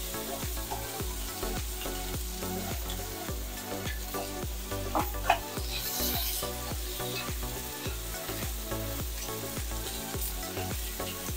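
Bitter melon and pork belly stir-frying in a hot pan. Steady sizzling under repeated scrapes and knocks of the spatula as the pieces are tossed, with a couple of sharper clacks about halfway through.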